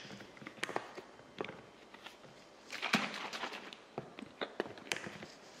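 A plastic bottle and a damp cloth being handled: scattered small clicks and taps, with a brief louder rustle about three seconds in.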